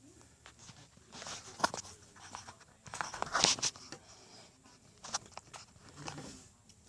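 Packaging being handled and opened: intermittent rustling and crinkling with small clicks and knocks, the loudest cluster about three and a half seconds in.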